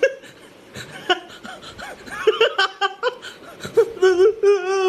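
A man's voice laughing and snickering in short broken bursts, then about four seconds in breaking into a long wail held on one wavering pitch, a crying, sing-song lament.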